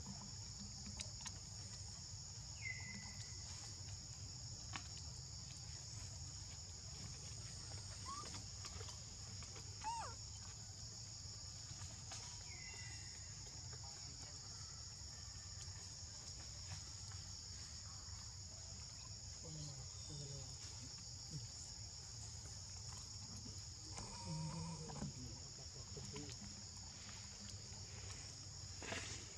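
Steady high-pitched insect chorus with a low rumble beneath it, and a few faint short chirps and squeaks now and then.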